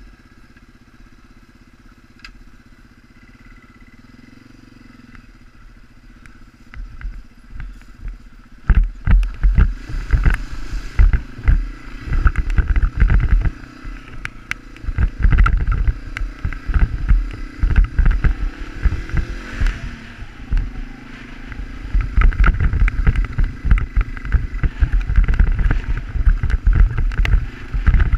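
Yamaha TW200's small single-cylinder engine running as the bike is ridden over gravel. It is quiet and steady at first, then turns loud and gusty about eight seconds in, with wind buffeting the helmet camera's microphone as speed picks up.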